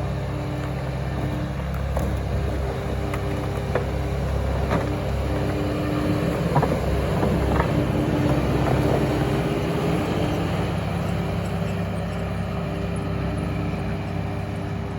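Excavator engine running steadily, with a tone that comes and goes over it and scattered knocks and clunks of rock being moved, most of them in the middle.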